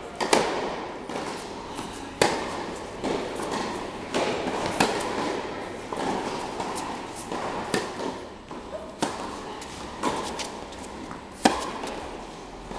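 Tennis balls struck by racquets, a sharp pop every one to two seconds with echo off the walls of a large indoor tennis hall, with fainter hits and bounces from other courts between them.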